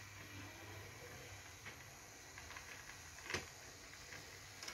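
Battery-powered Hape toy locomotive running very quietly on wooden track, a faint steady whir with a few light clicks; the sharpest click comes about three and a half seconds in.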